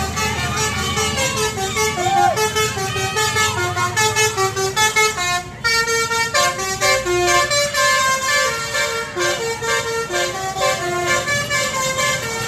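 A tour bus's basuri 'telolet' musical horn playing a quick tune of short notes that step up and down, with a brief break about halfway through before the tune carries on.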